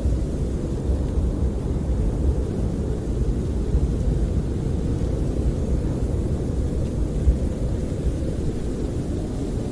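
Snowstorm wind buffeting a camper, heard from inside as a steady low rumble that swells and eases with the gusts.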